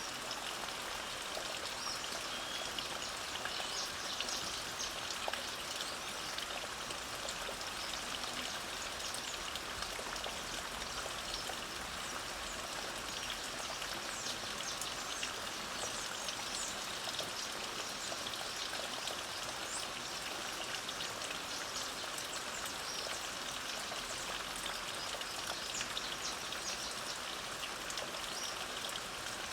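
Steady light rain pattering, with many small drops ticking. Faint bird chirps come and go behind it.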